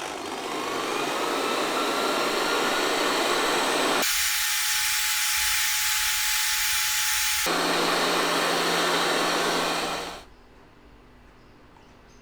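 Loud steady rushing noise of a running machine, with a whine that rises over the first two seconds. The sound changes abruptly twice, about four and seven and a half seconds in, and stops about ten seconds in.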